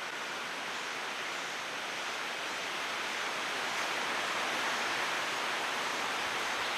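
Steady rushing outdoor noise, an even hiss that slowly grows louder, with no clear bird call in it.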